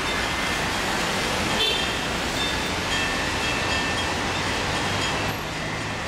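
Russian Orthodox church bells ringing from the cathedral bell tower, several bells struck in turn at different pitches, each tone hanging and fading, over a steady rush of street traffic.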